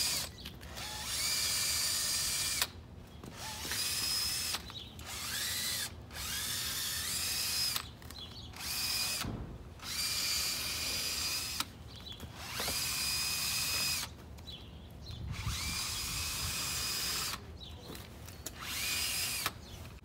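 Power drill spinning a scrub brush against a motorcycle's soaped bodywork, run in about nine short bursts. Each burst whirs up to a steady pitch, runs for a second or two, then stops.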